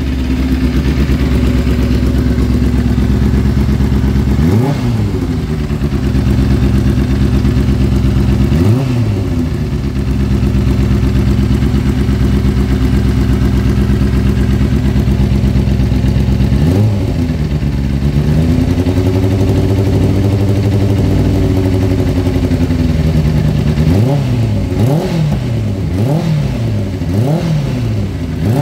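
Honda CBR600 race bike's inline-four engine idling through a carbon-fibre silencer, with quick throttle blips: three single blips spread through the first half, revs held up for a few seconds in the middle, then a quick run of blips near the end. A broken exhaust header nut makes it a little noisy at the manifold.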